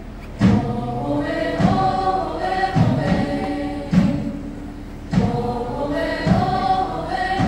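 Mixed choir of young men and women singing an Ao Naga song, holding long sustained notes. A low thump keeps a regular beat about once a second and is the loudest sound.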